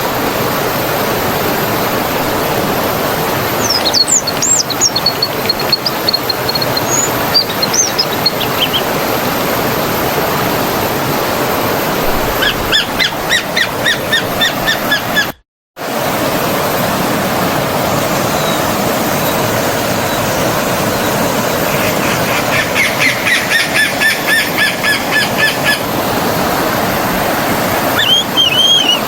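Forest stream water flowing steadily, with small birds chirping over it in short runs of repeated notes. The sound cuts out completely for about half a second near the middle.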